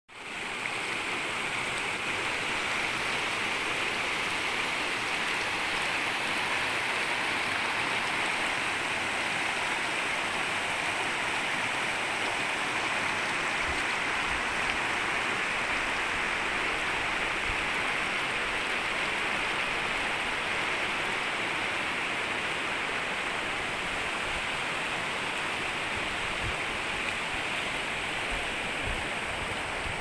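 Shallow mountain stream running over stones and small riffles between boulders: a steady, even rush of water.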